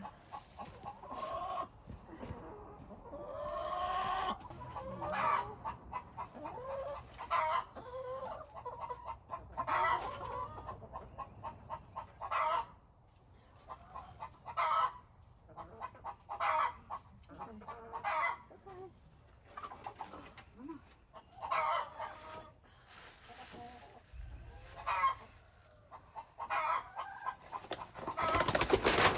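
Chickens clucking, short calls repeating every second or two, with a louder scuffling burst near the end.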